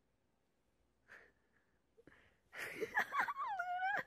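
A high-pitched drawn-out vocal call over a breathy rush in the second half: the pitch rises, dips, then holds and falls slightly. The first part is nearly quiet, with one faint short sound about a second in.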